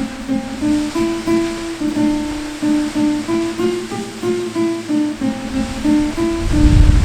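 Soft acoustic guitar music, a slow melody of single plucked notes, over a steady hiss of rushing water. A low rumble swells near the end.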